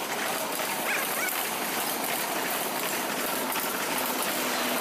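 Passenger train coaches rolling past on the track, a steady rushing noise of wheels on the rails.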